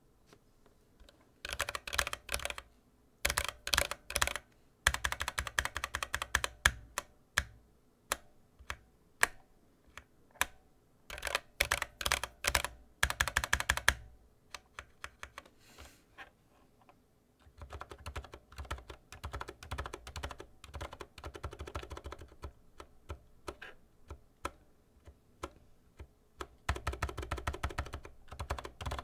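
Typing on a mechanical keyboard with PBT keycaps and stock linear switches. Loud bursts of sharp key clacks fill the first half. After a short lull comes a softer, denser stretch of keystrokes, and the loud clacks return near the end.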